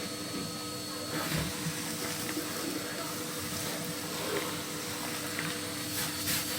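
Scraping, rubbing and light knocks of hand-cleaning inside a cast iron fireplace insert, over a steady hum.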